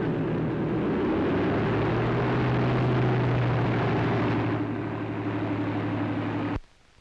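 Propeller plane's engines running as it taxis, a steady drone that cuts off suddenly near the end.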